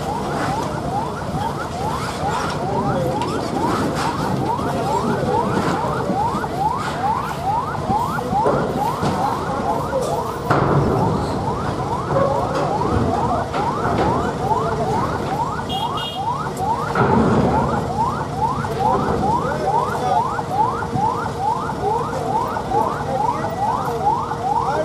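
Vehicle electronic siren sounding continuously as fast rising chirps, about three a second, over the low running of engines. About halfway through, a steady tone joins it.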